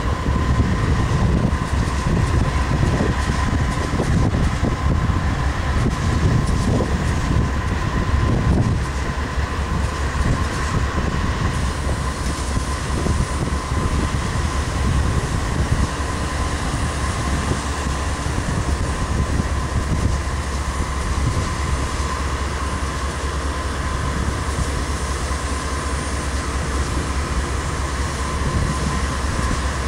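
GE AC4400CW diesel locomotive running steadily out of sight, a heavy rumble from its 16-cylinder engine with a steady high whine over it. The rumble is rougher and a little louder for the first several seconds, then evens out.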